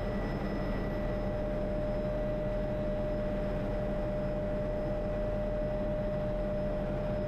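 Steady cabin noise of an MD500E turbine helicopter in cruise flight: a constant whine over an even low rotor and engine hum, unchanging throughout.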